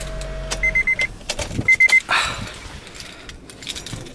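A Honda's idling engine cuts off about a second in, while the car sounds two quick runs of short high beeps, four then three. A short thud and keys jangling follow.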